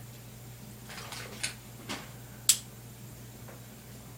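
A few light taps and clicks from objects being handled, the sharpest about two and a half seconds in, over a low steady hum.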